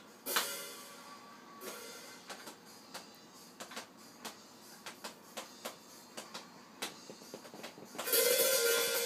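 Scattered light taps and clicks, about one or two a second, then about eight seconds in a cymbal is struck and rings on with a bright, sustained wash.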